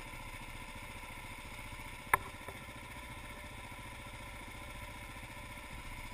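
Dual-sport motorcycle engine idling steadily while stopped, heard through a helmet-mounted camera. A single sharp click about two seconds in.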